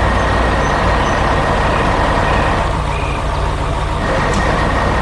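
Heavy construction-machine engine sound effect running steadily: an excavator's diesel hum with a thin, steady high tone over it.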